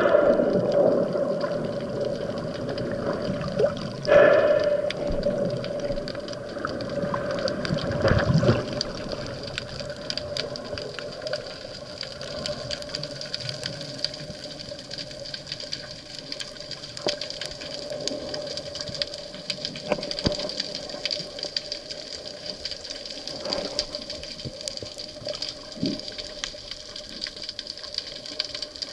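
Underwater sound of a rough sea picked up by a diving camera: a rush of moving water, stronger in the first several seconds with louder swells about four and eight seconds in, over scattered faint clicks and crackles and a steady faint hum.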